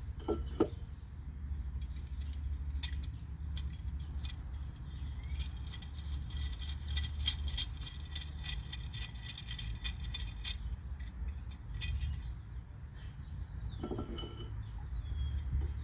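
Light metallic clinks and ticks of a C-clamp against a disc brake caliper as the clamp is turned in to push the piston back, with a quick run of clicks in the middle. A steady low hum runs underneath.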